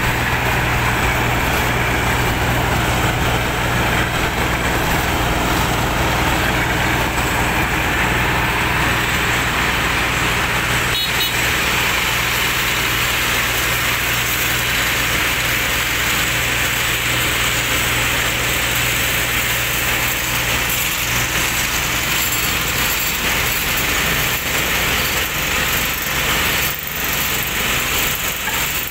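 Volvo P5320B tracked asphalt paver's diesel engine running steadily with a low hum. After an abrupt change about eleven seconds in, it gives way to the steady running of double-drum road rollers' diesel engines as they compact fresh asphalt.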